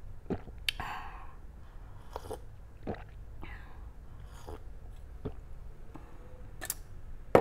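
Coffee being sipped from a glass mug: a short slurp about a second in, then a series of soft swallowing gulps and mouth clicks, with a sharp click near the end.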